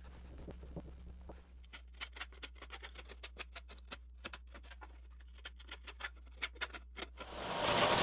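Sharp, irregular crackling clicks of hardened fibreglass cloth snapping as its excess is trimmed from the edge of a wooden paddle blade. Near the end a benchtop belt sander starts up and runs loudly.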